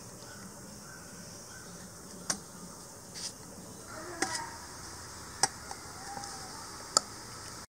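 A few sharp metal clinks, about five spread over several seconds, as a metal ladle knocks against an aluminium pressure cooker and a steel bowl while boiled sweet potato pieces are lifted out of their cooking water. A faint steady high hiss lies underneath.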